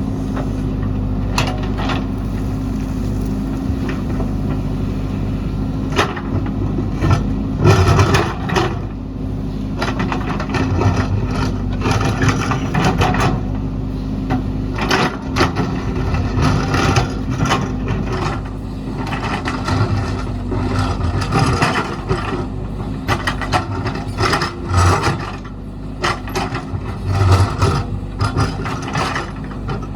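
JCB backhoe loader's diesel engine running steadily, with irregular scraping, clanking and knocking as the bucket works into rock and stones.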